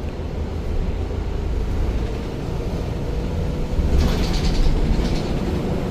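City bus engine and road rumble heard from inside the moving bus, with a brief rattle about four seconds in.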